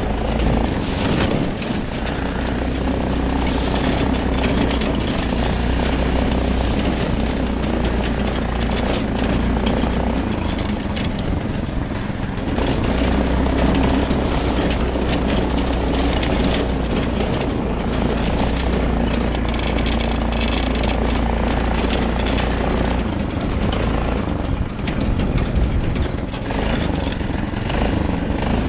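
Yerf-Dog 3203 go-kart's small single-cylinder engine running hard as the kart is driven off-road, its governor spring zip-tied so the governor won't engage. The engine note drops back briefly about twelve seconds in and again near the end.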